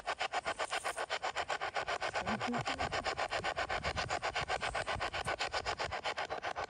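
Spirit box (ghost box radio) sweeping through radio stations: a rapid, even, choppy static of about ten pulses a second.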